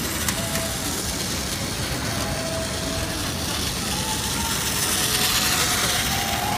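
Battery-powered Plarail toy train running round a loop of plastic track, its small motor and wheels making a steady whirring rattle, over city street noise.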